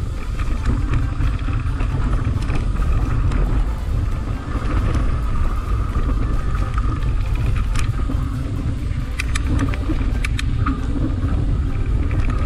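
Mountain bike riding a dirt singletrack, heard from a camera on the rider: a constant low rumble of wind buffeting the microphone over the rolling tyres, with the bike clicking and rattling over rough ground, most often around two-thirds of the way through.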